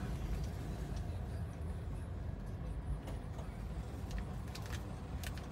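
Steady low engine and road rumble inside the cabin of a moving 2014 Honda Mobilio E automatic, with a couple of light clicks near the end.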